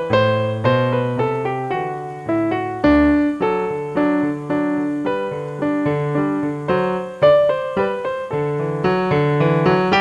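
Piano music, a continuous run of notes, each struck and then fading.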